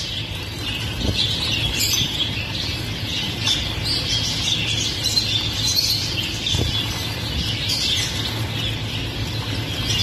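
A crowded cage of small finches, Gouldian finches among them, chirping and twittering all together in a busy, continuous high-pitched chatter, with occasional flutters of wings.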